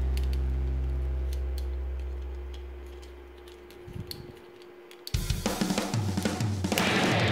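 Backing music: a held low chord fades out over the first few seconds, with faint clicks of plastic toy parts being handled. A rock track with drums comes in loudly about five seconds in.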